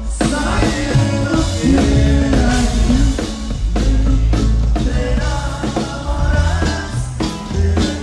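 A norteño band playing live: an accordion melody over bass and drums at a steady dance beat.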